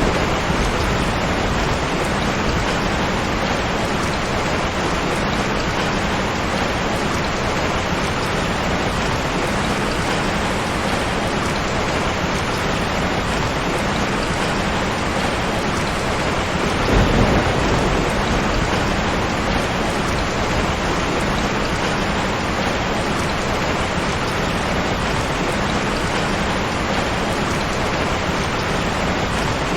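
Steady heavy rain falling, with one low rumble of thunder swelling and fading a little past halfway through.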